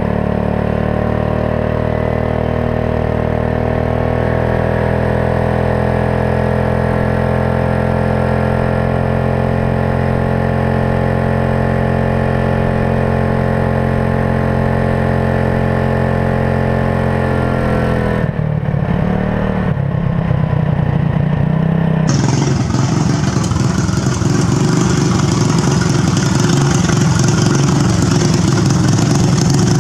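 Modified riding lawn mower's Briggs & Stratton engine running at full throttle at road speed, its pitch rising slightly over the first few seconds and then holding steady. About two-thirds of the way through, the sound changes abruptly to a louder, noisier engine sound with more hiss as the mower drives toward the microphone.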